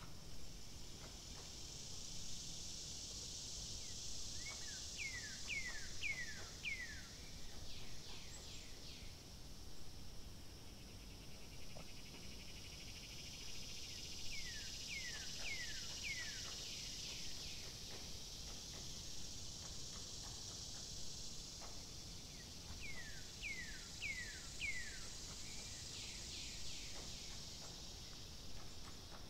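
Outdoor nature ambience: a steady high insect hiss that swells and fades, and a bird singing a short phrase of four or five quick falling notes about every ten seconds, three times.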